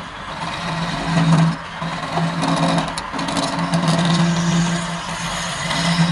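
Wood lathe running while a flat chisel cuts a spinning wooden spindle, throwing off shavings. A low hum and the scraping noise of the cut swell and ease in strokes of about a second.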